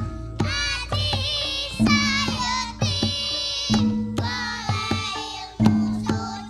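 Javanese gamelan ensemble playing jaranan music, with a sung melody over struck metal and drum strokes. A deep stroke rings out about every two seconds.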